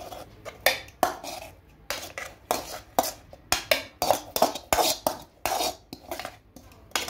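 A perforated metal ladle scraping and knocking against a metal pan as fried vegetables are scraped out into a steel mixer-grinder jar: an irregular run of metallic clinks and scrapes, a few a second.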